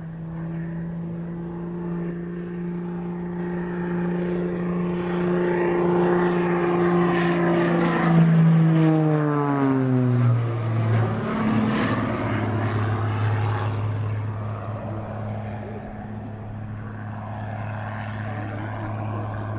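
A propeller-driven light aircraft makes a low, fast pass overhead. Its engine note is steady as it approaches, loudest about eight seconds in, then drops sharply in pitch as it passes and goes on at a lower, steady pitch as it flies away.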